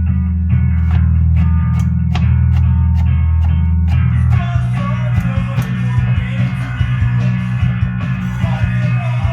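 Punk rock song: a picked electric guitar part with bass, then the full band with drums and distorted guitars comes in about four seconds in.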